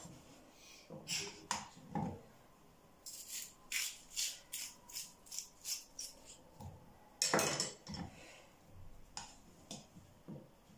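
Small knife scraping and coring out the middle of halved potatoes in a bowl: a run of short scrapes, about three a second, with one louder knock about seven seconds in.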